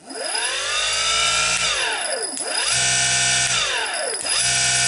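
Electric motor from a Bosch Rotak cordless lawnmower, running unloaded on its bare shaft and switched on and off by hand. It whines up to speed, holds steady, winds down and spins up again, starting three times in all.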